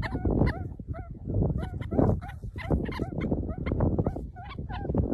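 Meerkats calling in rapid short, high squeaky chirps, several a second, over a low rumble.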